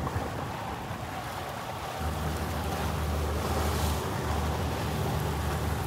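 Wind on the microphone and water noise on open water, with a boat engine's low steady hum coming in about two seconds in.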